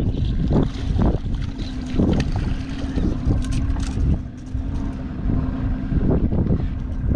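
Boat motor running steadily at idle, a constant low hum, with wind buffeting the microphone in gusts and a few brief crackles near the middle.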